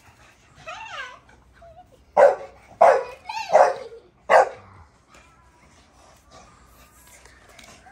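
A dog gives a short whine, then barks four times in quick succession, loud and sharp.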